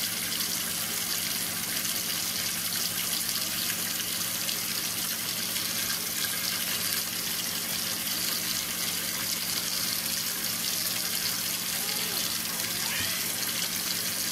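Kitchen faucet running steadily into a stainless steel sink, the water splashing over hands rinsing a crab.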